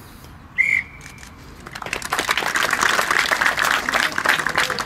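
A referee's whistle gives one short blast, ending a minute's silence. From about two seconds in it is followed by applause, which is the loudest sound and continues.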